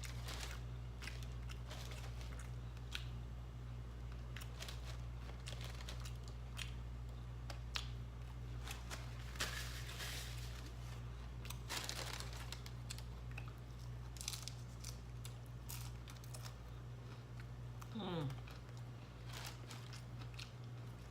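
Close-up eating sounds: chewing and crunching on fast-food tacos, with paper food wrappers crinkling, many small clicks and crackles over a steady low hum.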